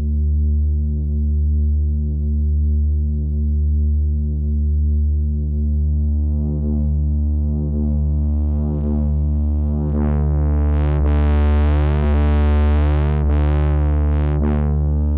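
Native Instruments Monark bass synth playing a sustained, slightly pulsing low note of square and sawtooth waves through Maschine's Analog distortion, a Tube Screamer-style overdrive. As the distortion's tone knob is turned up from about halfway through, the sound grows brighter and buzzier, peaking a few seconds before the end.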